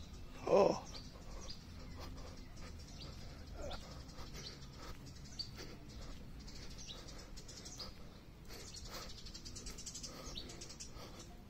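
Birds chirping outdoors, with short high calls scattered throughout. A brief, louder low call or cry stands out about half a second in.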